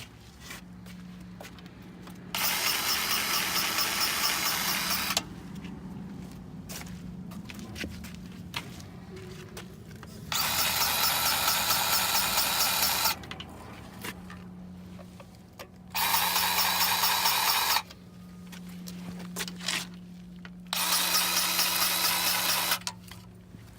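Powered grease gun running in four short bursts of two to three seconds each, pumping grease into skid steer grease fittings with a fast pulsing whir. A steady low hum runs underneath.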